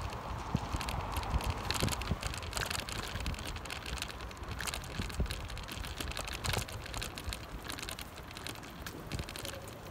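Rattling and clattering of a bicycle ridden over paving and cobblestones: many short irregular clicks over a low rumble of wind on the microphone.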